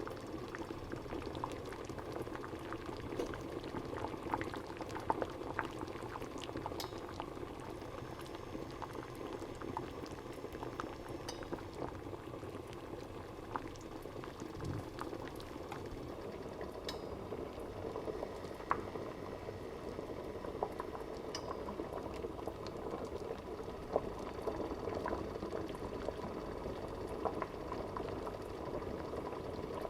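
Water boiling for cooking: a steady bubbling and gurgling with frequent small pops.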